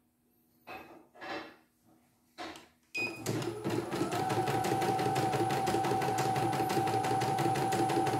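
Three brief handling sounds at the hoop, then a CNY E900 computerised embroidery machine starts stitching, its needle clattering in rapid, even strokes, with a steady whine joining about a second later.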